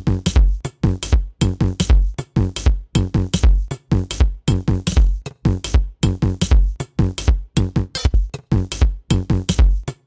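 Electronic background music with a fast, steady drum-machine beat and deep bass.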